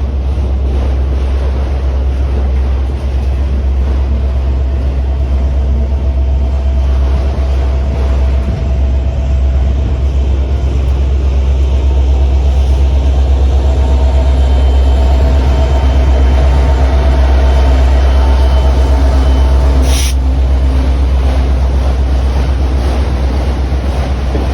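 Long autorack freight train rolling past: a steady heavy rumble of steel wheels on rail with wind on the microphone. It swells slightly in the middle with faint steady tones, and there is one sharp clank about twenty seconds in.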